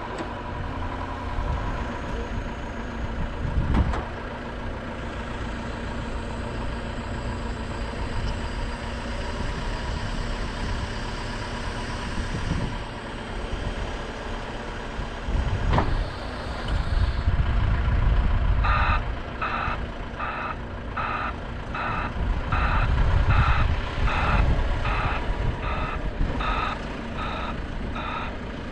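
Heavy diesel machinery running with a low rumble and a couple of sharp knocks. About two-thirds of the way through, a vehicle's reversing alarm starts beeping steadily, about one and a half beeps a second, as a machine backs up while the truck is being unloaded.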